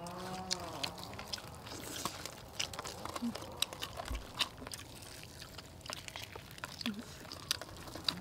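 Crunching and chewing of crispy flour-coated fried chicken legs, with scattered short crackles as the crisp coating is torn by hand and bitten. A brief hummed voice in the first second.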